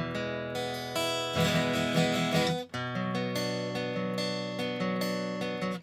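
Intro music: strummed acoustic guitar chords, stopping abruptly near the end.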